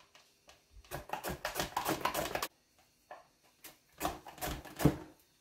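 Hands gathering sliced carrot rounds in a stainless steel mixing bowl: the slices clatter and patter against the metal in two bursts of quick clicks, one about a second in and one about four seconds in.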